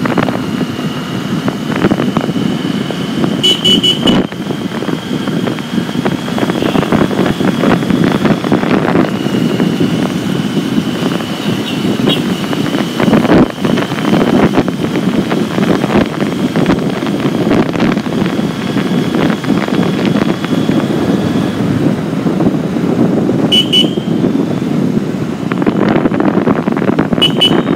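Steady motorcycle engine and road noise heard from the rider's seat while riding in traffic. Short horn toots sound about four seconds in and twice near the end.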